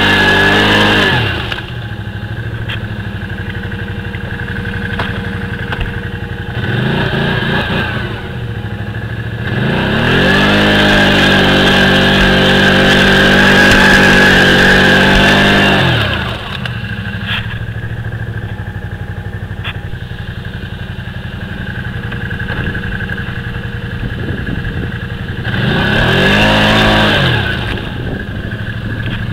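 Can-Am Outlander 500 ATV's V-twin engine running in deep mud, revved up four times and dropping back to a steady idle between; the third rev is held for about six seconds.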